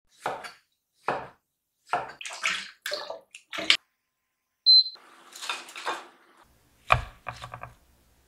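Knife chopping cauliflower on a wooden cutting board, about seven short strokes. Then a single short beep from an induction hob's touch control, a second or so of splashy hiss, and a thud followed by a few quick clicks near the end.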